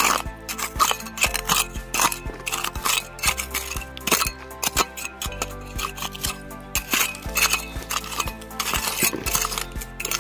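Metal tines of a small hand rake clicking and scraping irregularly through stones and sediment under water, over background music with sustained chords that change about once a second.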